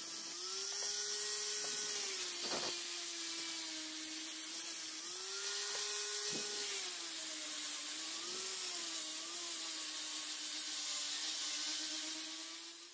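Small electric angle grinder with a sanding disc grinding the metal handle of a billhook: a steady whine over a high hiss. Its pitch rises twice for a second or two when the disc is eased off and drops again under pressure.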